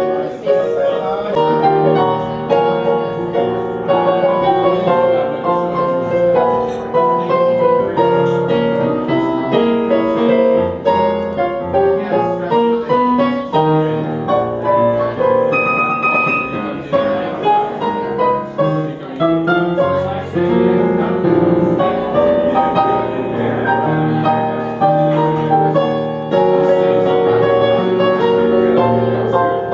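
Instrumental music led by piano, a continuous run of held notes and chords.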